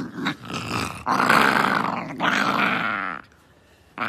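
Husky growling and grumbling in play: a few short grunts, then two long raspy growls of about a second each.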